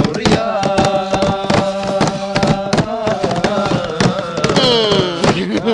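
Men singing together in chorus while beating a quick rhythm with their hands on a wooden tabletop. A held note slides down a little after four seconds in.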